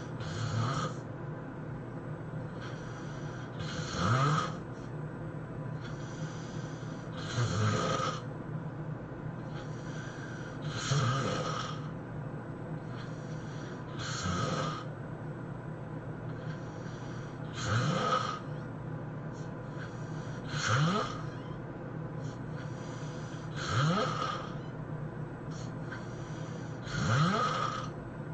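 A person snoring in deep sleep, high-intensity snoring: a loud snore about every three seconds, each rising in pitch, with a quieter breath between snores.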